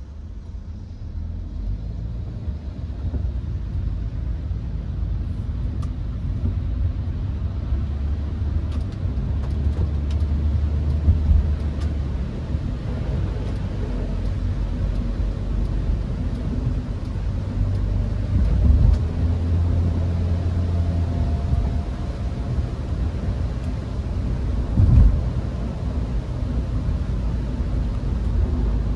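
A Hyundai HB20 1.6 automatic driving, heard from inside the car: a steady low engine and tyre rumble that builds as the car picks up speed, with a few thumps from the road surface about 11, 19 and 25 seconds in.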